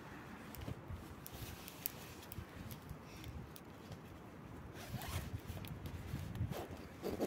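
Short rasping scrapes at an uneven pace, a few stronger strokes in the second half.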